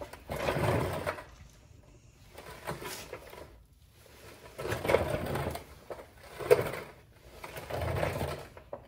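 589Fab metal skid plate support bracket rattling and scraping against the ZR2's underbody in five separate bursts as it is shoved and worked by hand. The bracket is a tight press fit and will not go on without a mallet.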